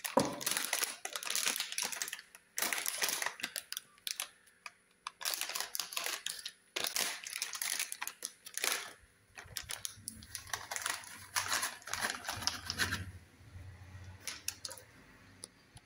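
Foil sachet of ice cream mix powder crinkling in irregular bursts as it is handled and shaken out over a bowl of milk.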